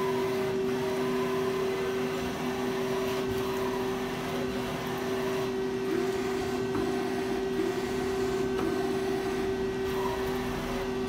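Femco Durga 25-E CNC turning center running with a steady machine hum and a constant tone while its turret slide is jogged along the axes.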